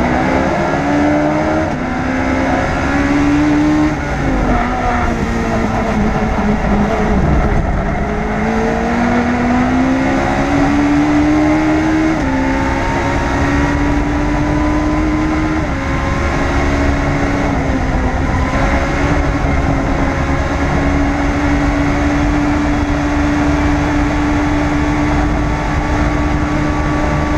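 Onboard sound of a Legends race car's Yamaha motorcycle four-cylinder engine under load, with wind and road rumble. The engine pitch rises, falls back sharply about 4, 12 and 16 seconds in as the car shifts up, then holds steady at high revs on the straight.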